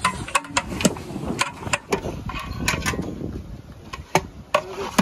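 Long metal spatulas knocking and scraping against large steel cooking pots as raw chicken in spice paste is stirred: irregular sharp metallic clanks, several a second, over a wet churning of the meat.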